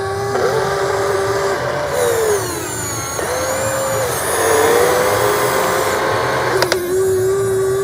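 Radio-controlled excavator's electric motors whining, the pitch stepping up and down and gliding as the machine is worked, with a sharp click about seven seconds in.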